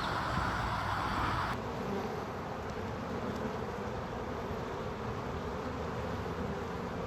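Steady, dense buzzing of a large honey bee swarm clustered in a tree. About a second and a half in, the sound changes abruptly and becomes duller.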